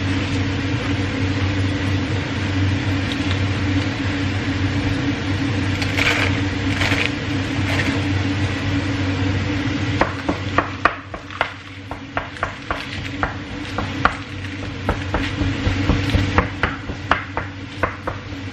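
Food sizzling in a frying pan while it is stirred, over a steady low hum. About ten seconds in the sizzle eases and a run of sharp knocks follows, a few a second, from a utensil or knife on the pan or board.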